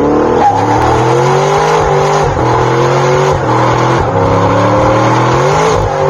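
Car engine revving hard, its pitch climbing and dropping several times.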